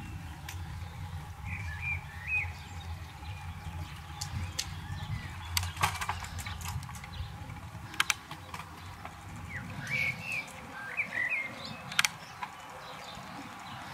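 Steady low rumble of riding along an asphalt road, with songbirds chirping twice, once near the start and again about ten seconds in. A few sharp clicks or knocks come through, the loudest about eight and twelve seconds in.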